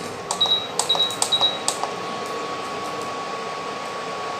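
Electric induction cooktop being switched on: about five button presses in the first second and a half, each a click with a short high beep. Then the cooktop's cooling fan starts with a steady whir and a thin electrical whine.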